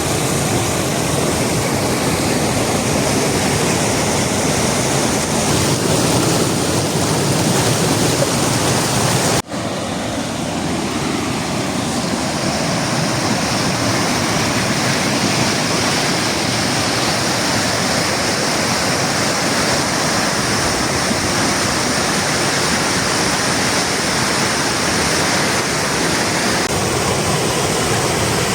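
Rushing water of the Ahinkoski waterfall, a loud steady rush. It breaks off abruptly about nine and a half seconds in, then carries on slightly brighter in tone.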